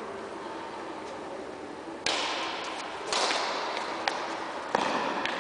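Badminton rackets hitting a shuttlecock in a rally: three sharp hits roughly a second apart, starting about two seconds in, each ringing on in the echo of a large sports hall, with a couple of fainter clicks between.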